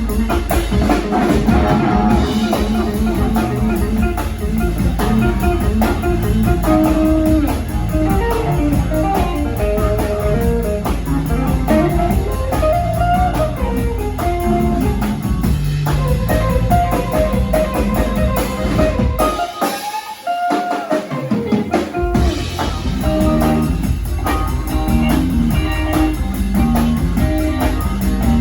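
Band music: guitar over bass and drum kit. The bass and drums drop out for about two seconds, around twenty seconds in, then come back.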